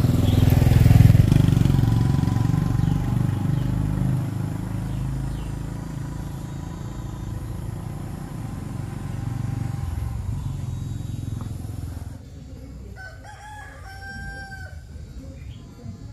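An engine running steadily, loudest at the start and fading over about ten seconds. Then the sound drops away abruptly, and a rooster crows near the end.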